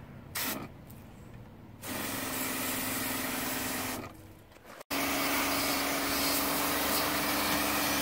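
Speed Clean CoilJet battery-powered pressure washer spraying: a steady hiss of water jetting onto plastic, with the pump motor humming under it, as dirt and coil cleaner are rinsed off a mini-split's vane and panel. The spray starts about two seconds in, stops about four seconds in, and starts again a second later.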